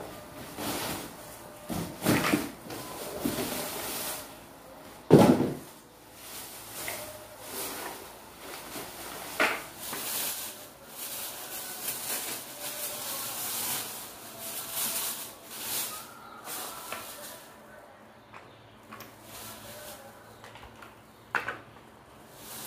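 Plastic wrapping rustling and a cardboard box being handled as a folded baby stroller is pulled out and unwrapped, with scattered knocks of the stroller frame and a loud thump about five seconds in.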